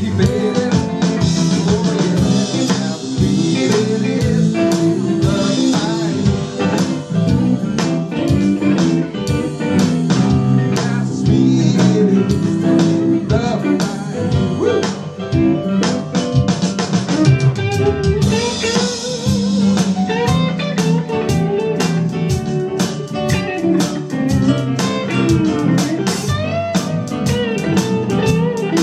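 Live band playing a blues number: guitar out front, with bending notes, over a drum kit keeping a steady beat.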